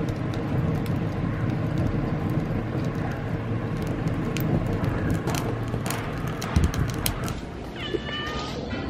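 Split firewood burning in the firebox of a brick wood-fired stove: a steady low roar of the flames with sharp crackles and pops. Near the end a cat meows.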